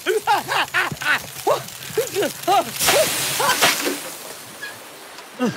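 Cartoon sound effects: a rapid string of short squeaky chirps, each rising and falling in pitch, with two whooshes in the middle, then one falling glide near the end.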